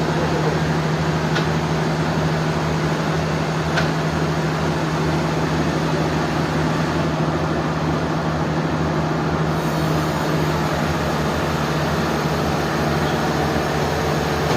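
Sawmill machinery running with a steady, even drone and a constant low hum.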